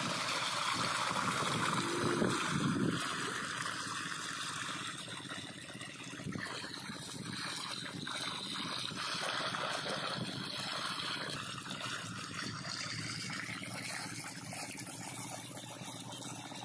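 Irrigation water flowing steadily out of the end of a plastic pipe and running along the furrows between crop rows.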